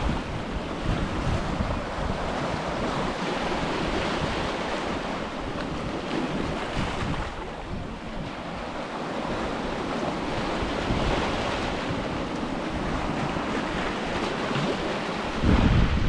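Ocean surf washing on a beach, the wash swelling and easing every few seconds, with wind buffeting the microphone and a loud gust near the end.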